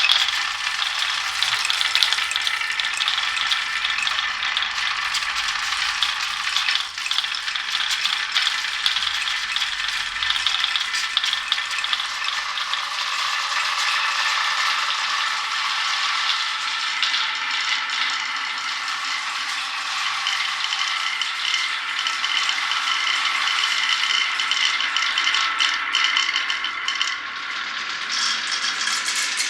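Many glass marbles rolling and clattering down a wooden marble run, a dense, steady rattle of small clicks.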